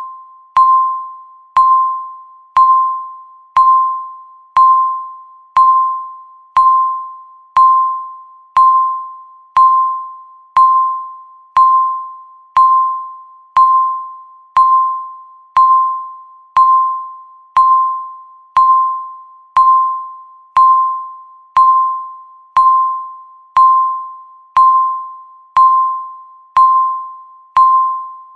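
Electronic countdown-timer beep repeating once a second: a single tone of about 1 kHz that starts sharply and fades quickly, each beep marking one second counted down.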